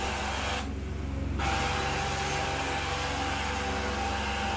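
Carpet-cleaning extraction wand pulling air and water through the carpet, a rushing hiss over the steady hum of the extractor's vacuum. The hiss drops out briefly about a second in, then carries on.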